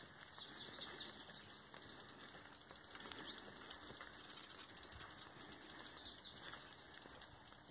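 Quiet rural outdoor ambience with faint bird chirps, a few short high calls now and then.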